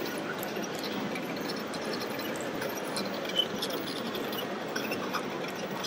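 Steady hubbub of a busy exhibition hall with many small scattered clicks and knocks. A brief high squeak about three seconds in is the loudest moment.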